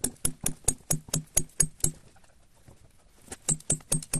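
Sledgehammer striking a row of steel wedges driven into a boulder to split it (plug-and-feather rock splitting), played back sped up: a quick, even run of ringing metallic strikes, about four or five a second, breaking off for about a second past the middle before resuming.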